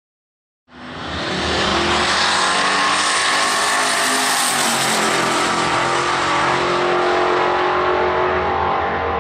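Twin-turbo V8 of a Holden VL Calais drag car at full throttle on a quarter-mile pass, cutting in suddenly about a second in and staying loud throughout. Its sound dulls slightly near the end as the car pulls away down the track.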